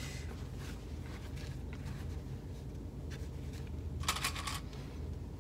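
Rustling and light clicks of the stiff bag panels being handled and bent into place. About four seconds in comes a brief rattle of small plastic sewing clips in a plastic cup as a hand grabs one. A low steady hum runs underneath.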